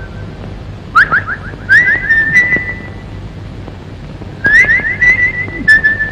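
High whistling tones in two phrases, one about a second in and one about four and a half seconds in. Each is a run of quick rising slides followed by held notes.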